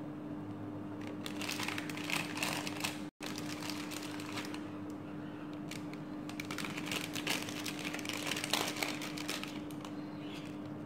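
Light crinkling and clicking as hands place Oreo biscuits into a foil-lined cake tin, brushing the aluminium-foil lining, in two spells of handling, over a steady low hum.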